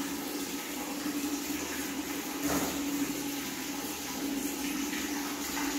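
Water splashing and sloshing in a small plastic bathtub as a baby monkey moves and plays in it, with a sharper splash about two and a half seconds in, over a steady low hum.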